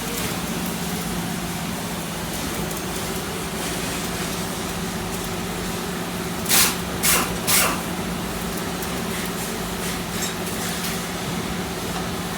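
A steady machine hum, with three short hisses in quick succession a little past the middle.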